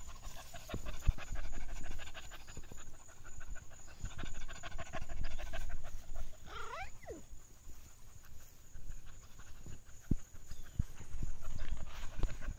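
Small dog panting close by in quick rhythmic breaths, in two spells, with a short rising-and-falling squeal about six and a half seconds in and scattered low thumps.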